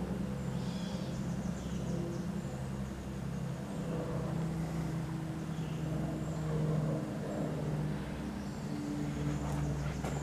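Low steady motor hum, with a few faint bird chirps.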